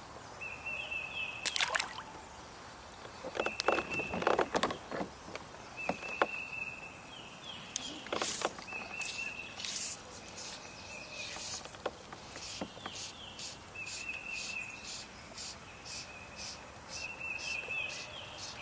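Knocks and scrapes of handling in a kayak, loudest a few seconds in and again about eight seconds in, over a repeated high-pitched call from swamp wildlife: a short steady note about every second and a half. A run of quick clicks, two or three a second, comes in toward the end.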